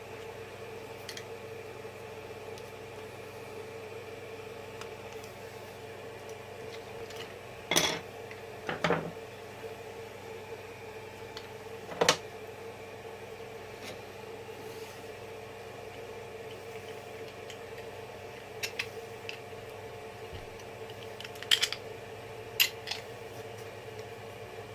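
A steady machine hum, with a few sharp clicks and clatters of small hard objects, the loudest about a third and halfway through, and a quick pair near the end.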